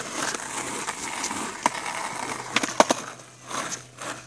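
Skateboard wheels rolling on the ground, then sharp clacks of the board about halfway through, the pop and landing of an ollie, after which the rolling fades.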